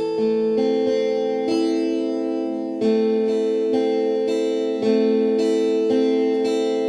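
Twelve-string guitar picking the closing chords of a song after the last sung line, a new note or chord plucked every half second to a second and left to ring.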